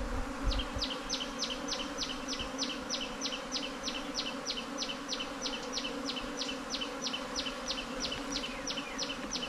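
A honeybee colony buzzing in a steady drone as its underground nest is dug open and the bees swarm in the air. Over it, a high, sharp chirp repeats evenly about three times a second, starting about half a second in.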